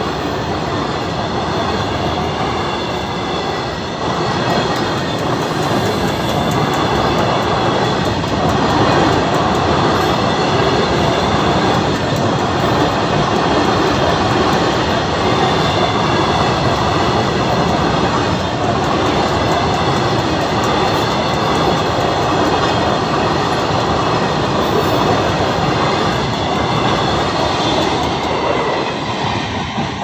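Long freight train of open wagons rolling past at close range: a loud, steady rumble and clatter of wheels on rail, with a faint steady high wheel squeal over it. It fades near the end as the last wagons pass.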